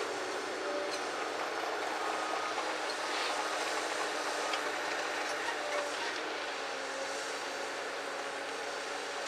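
Komatsu PC200LC excavator running, a steady diesel din with short faint hydraulic whines and light metallic ticks as it works its boom on top of a loaded rail gondola.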